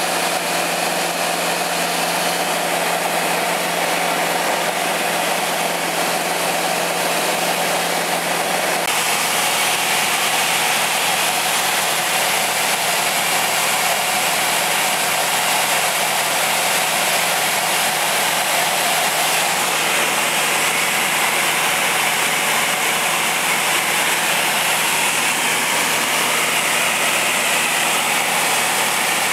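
Steady drone of a single-engine propeller airplane's piston engine and propeller heard inside the cabin in flight, mixed with rushing wind noise; its low hum drops a little in pitch about nine seconds in.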